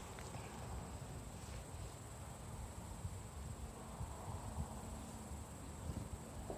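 Steady high-pitched insect chirring, cricket-like, holding one unbroken tone, over a low rumble of wind or handling noise.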